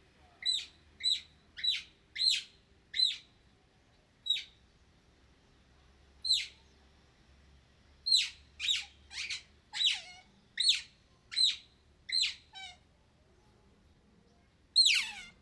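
Otter chirping: short, high-pitched chirps that drop sharply in pitch, in irregular runs of about one to two a second with pauses between. Near the end comes one longer, louder call that falls further in pitch.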